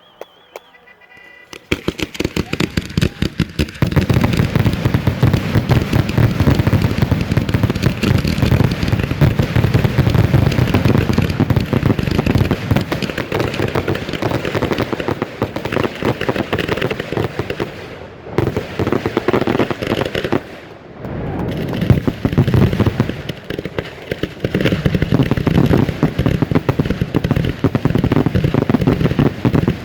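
Firework salutes going off in a rapid barrage: dense, overlapping sharp bangs, several a second, starting about two seconds in and easing off briefly twice past the middle.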